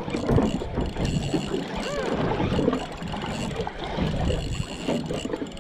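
Wind buffeting the microphone and water on the hull of a small boat at sea, with a spinning reel being wound in on a hooked fish.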